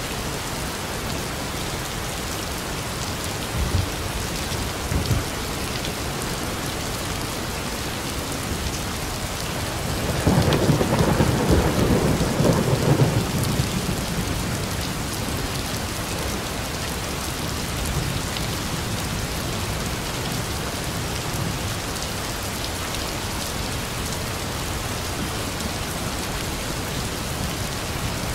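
Heavy rain falling steadily, with a long roll of thunder about ten seconds in that lasts around four seconds and is the loudest thing. Two short low thumps come a few seconds before it.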